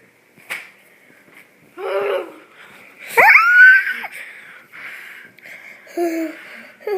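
Short vocal sounds, with one loud squeal about three seconds in that sweeps sharply up in pitch and then holds.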